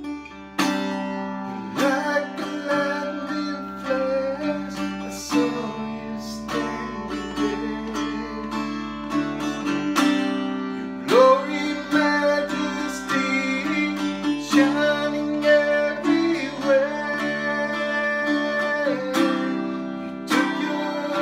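Guitar strumming chords through an instrumental stretch of a slow song, with a man's voice singing along wordlessly at times.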